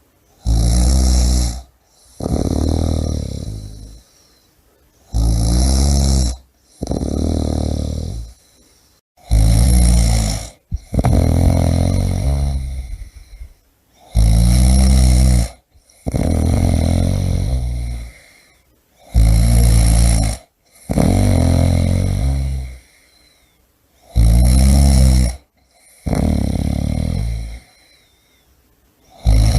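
A person snoring loudly in a steady rhythm. Each breath is a short, harsh, rattling snore followed by a longer, softer one, repeating about every four to five seconds.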